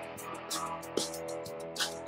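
Background music with light percussion.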